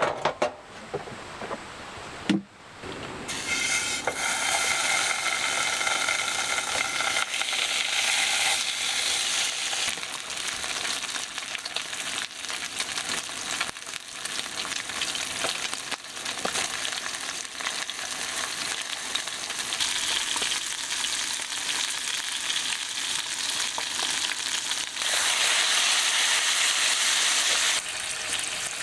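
Food sizzling in a hot pan, starting about three seconds in after a few light knocks and growing louder near the end.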